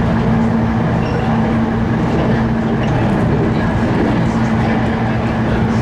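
Running noise heard inside a JR Kyushu 811-series electric multiple unit motor car: a steady rumble of wheels on rail, with the self-ventilated traction motors growling at a steady pitch as the train travels at speed.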